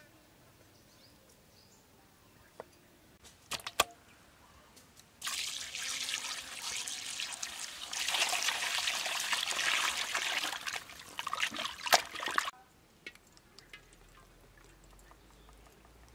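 Water pouring onto skinned field rats in a basin as they are rinsed. It starts about five seconds in and runs for some seven seconds, preceded by a few sharp knocks.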